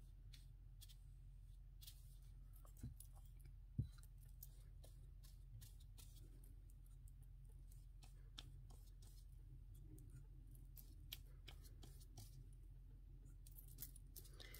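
Faint scratchy strokes and dabs of a stiff-bristled brush spreading matte Mod Podge over fabric on paper, with two small knocks about three and four seconds in, over a low steady hum.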